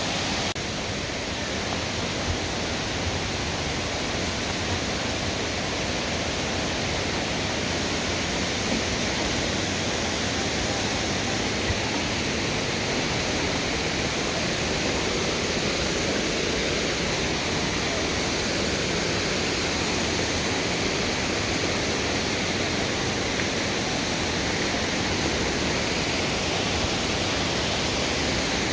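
Small forest waterfall: a steady rush of falling water.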